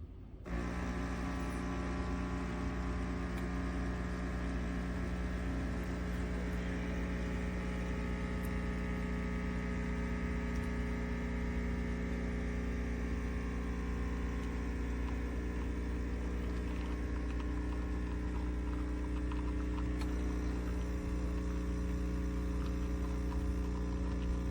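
Compact espresso machine's electric pump humming steadily with a buzzing mains-frequency drone. It switches on abruptly about half a second in and cuts off right at the end.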